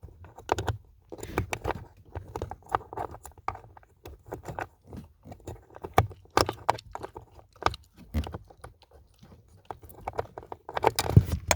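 Irregular clicks, taps and scrapes of small plastic parts being handled and pushed together as a blend door actuator's gear piece is worked onto its shaft under a car's dashboard.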